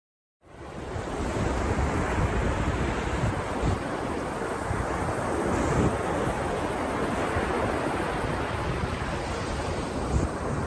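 Ocean surf washing steadily onto a beach, with wind rumbling on the microphone. It starts about half a second in, out of silence.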